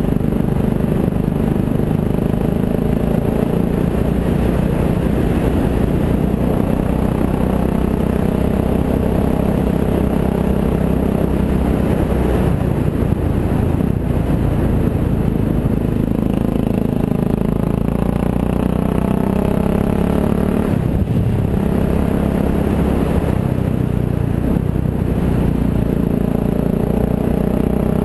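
Motorcycle engine running as the bike is ridden along a lane. About halfway through, the engine note rises and falls a few times as the throttle changes.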